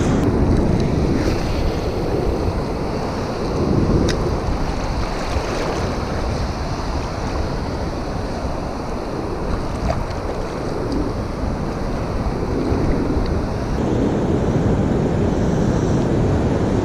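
Ocean surf washing in steadily, swelling and easing, mixed with wind rumbling on the microphone. A single sharp click about four seconds in.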